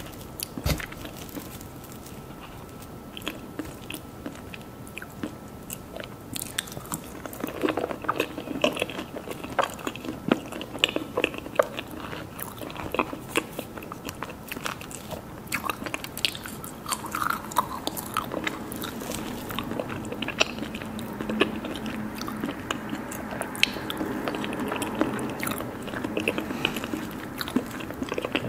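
Mousse cake being bitten and chewed, with many small crunches and clicks, busier from about seven seconds in.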